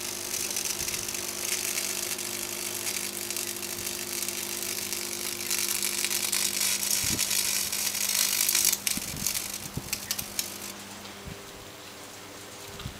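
High-voltage arcing from a microwave oven transformer jumping past the end pins of a fluorescent tube: a crackling hiss over the transformer's steady mains hum. The hiss grows louder in the middle, breaks into a few separate crackles, then cuts off about three-quarters of the way through, leaving only the hum.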